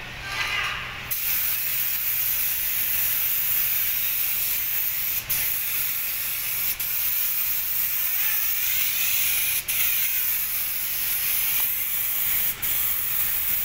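Compressed-air paint spray gun hissing steadily while spraying paint. The hiss starts about a second in and breaks off briefly four times.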